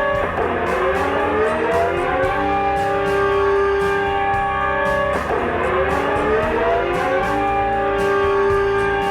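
Droning mock emergency-alert music: a steady chord of held tones with a swooping sweep through it twice, about five seconds apart, cutting off suddenly at the very end.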